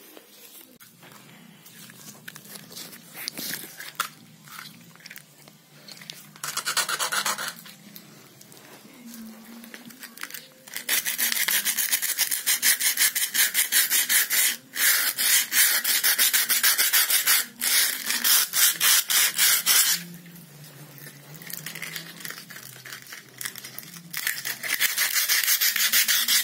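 Sandpaper rubbed quickly back and forth by hand over a painted wall, scraping the paint off. The strokes come in spells: a brief one, then a long fast run about halfway through, then another near the end, with quieter pauses between.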